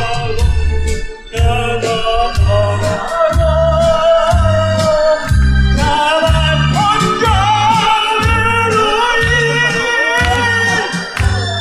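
A singer performing a song live over amplified backing music, with a steady beat in the bass.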